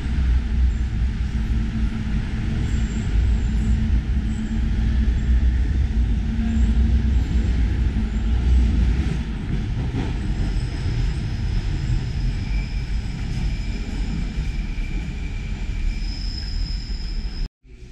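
Loud, deep rumble of an underground metro station, with a steady hum in the first half and faint high whines from about ten seconds in. It cuts off abruptly near the end.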